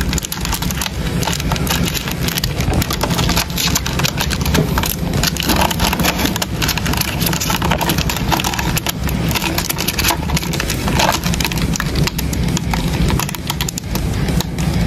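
Two stag beetles grappling on a bark-covered log: dense, rapid scratching and clicking of their claws and mandibles against the wood and each other, over a steady low hum.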